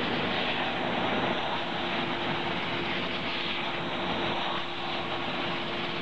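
QCL 160 vertical ultrasonic washing machine running: water splashing and the rush of its drive mechanism, with a steady hum.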